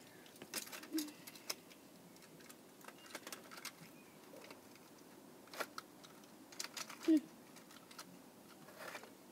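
Faint, scattered clicks and taps of die-cast toy cars being handled and set in place on a plastic toy track, with a brief vocal sound about seven seconds in.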